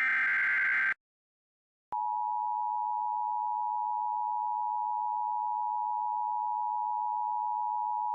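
The last burst of an Emergency Alert System SAME digital header, a buzzy warbling data tone lasting about a second, then a second of silence and the steady two-tone EAS attention signal starting about two seconds in. This is the sequence that opens a new emergency alert.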